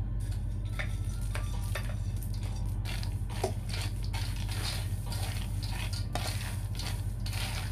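Cooked peanuts being stirred and tossed with a spatula in a container: a quick, irregular run of short scraping and rattling strokes over a steady low hum.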